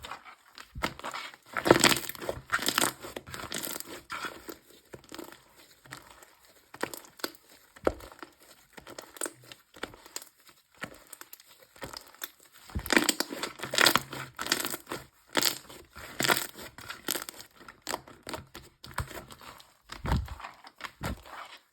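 Slime being squished and pressed by hand, with irregular crackling and popping clicks that come in dense clusters, and a few soft low thuds near the end.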